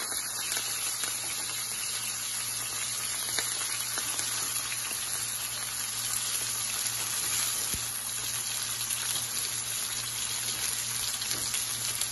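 Chopped onion, tomato and curry leaves sizzling steadily in hot sesame oil in a nonstick frying pan, with an occasional faint pop.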